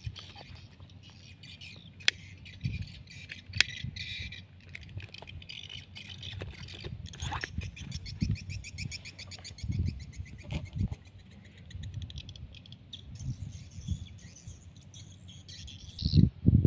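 Birds chirping and trilling continuously in the background, with scattered low knocks and rustling and a few sharp clicks.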